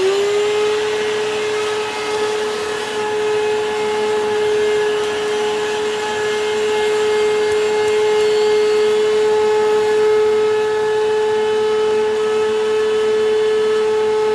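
Hoover WindTunnel Bagless upright vacuum cleaner (model U8351-900) just switched on, its motor reaching full speed in the first moment and then running at a steady pitch: a loud, even whine over the rush of air.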